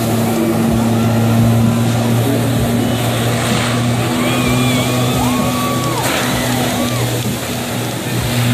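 Steady engine drone of the personal watercraft that pumps water up the hose to a flyboard, under the hiss of its water jets and spray.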